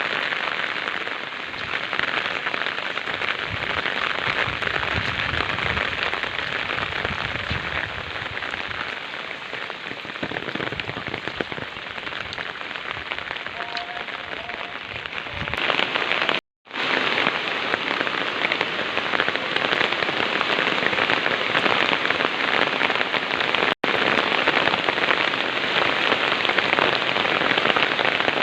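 Heavy rain pouring down in a steady, dense hiss. The sound cuts out completely for about half a second just past the middle, and for an instant again later.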